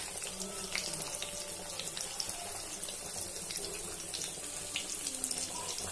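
Masala-marinated snakehead fish pieces shallow-frying in hot oil with curry leaves, a steady sizzling hiss dotted with small crackles and pops.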